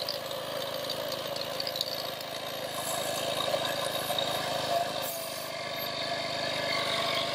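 DBPOWER 12V DC portable air compressor running steadily and loud, pumping air into a car tyre through its hose and valve chuck.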